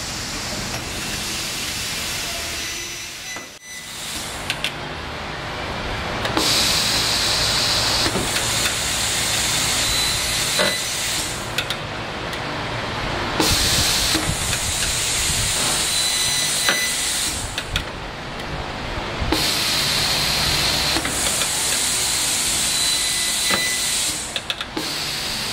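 Car-O-Liner resistance spot welder joining a replacement steel center pillar, spot weld after spot weld: a steady hiss with sharp clicks, and three louder stretches of hiss lasting a second or two, about six seconds apart.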